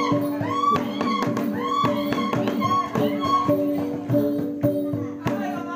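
Sumbanese gong ensemble with drum playing the ronggeng dance rhythm: several gongs ring at steady pitches over a fast, even run of drum strikes.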